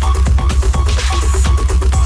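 Bass-heavy electronic dance music from a DJ set played loud over a PA, with a pounding bass line and a steady fast beat.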